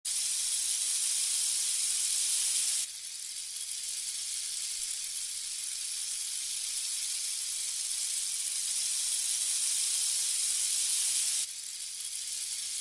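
A steady, high-pitched hiss like static or white noise. It drops abruptly in level about three seconds in and again near the end.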